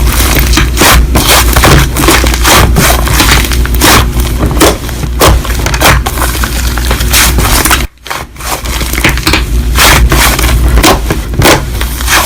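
Crunchy slime being squeezed and pressed by hand, giving a dense run of crackles and pops, with a short break about eight seconds in.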